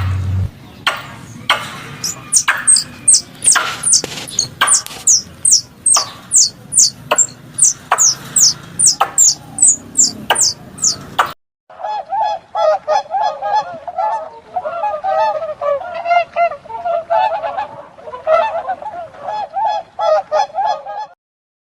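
Wild animal calls in two clips. First comes a run of short, high, falling squeaks, about two a second, with sharp clicks between them. About eleven seconds in it cuts abruptly to a dense chorus of lower, wavering calls from many animals, which stops shortly before the end.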